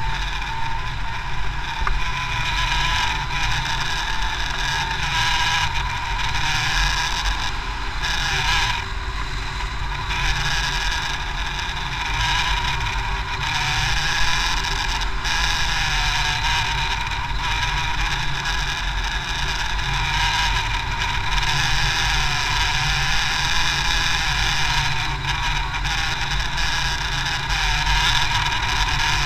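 Steady rush of airflow over a wing-mounted action camera's microphone on a hang glider in flight, with a deep buffeting rumble and a faint wavering tone.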